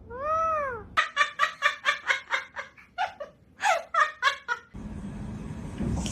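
A pet bird calling: one rising-and-falling squawk, then a fast run of repeated chattering notes like a laugh. Near the end this gives way to a steady rushing noise.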